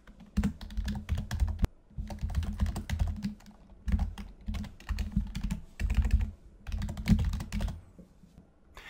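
Typing on a computer keyboard: bursts of rapid key clicks separated by short pauses, stopping about a second before the end.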